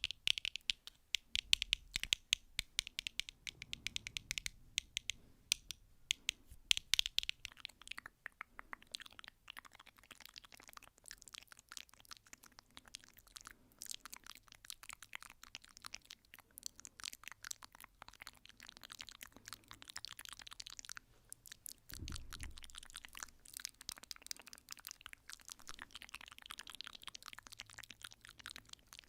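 Rapid, irregular ASMR tapping and clicking: many small sharp clicks, louder and more spaced in the first several seconds, then quicker and softer, with a brief low thump about two-thirds of the way through.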